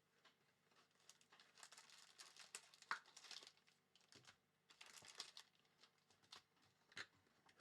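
Plastic wrapping crinkling and tearing in quiet, scratchy stretches as a sealed box of trading cards is unwrapped, with a few sharp clicks of handling.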